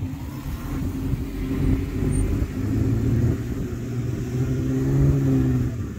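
Jeep engine working at low speed under load while being spotted over a trail obstacle. The engine note grows louder about two and a half seconds in, holds, then drops away just before the end.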